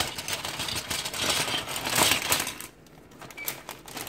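Clear plastic zip bag crinkling as LEGO pieces are tipped out and clatter onto a wooden desk, the loudest clatter about two seconds in, followed by a few light clicks as the parts settle.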